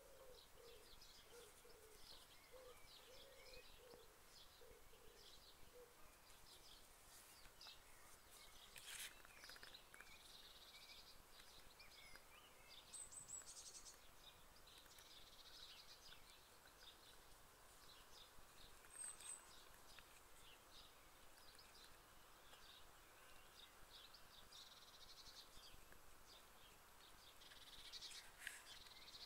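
Faint birdsong: birds chirping on and off, with a run of low, evenly repeated hooting notes in the first few seconds.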